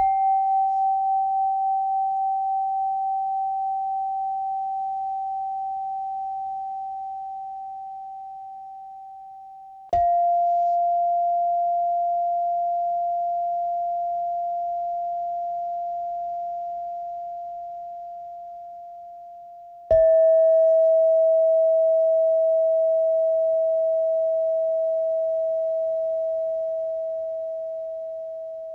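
Three strokes of a meditation chime about ten seconds apart, each ringing as a nearly pure tone that fades slowly, each a little lower in pitch than the one before. The strokes pace the breathing cues of a guided breathing exercise.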